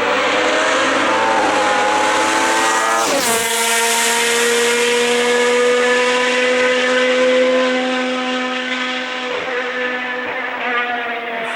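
Racing car engine at high revs, climbing in pitch under acceleration, then an upshift about three seconds in drops the note abruptly. It then holds a steady high note that weakens near the end.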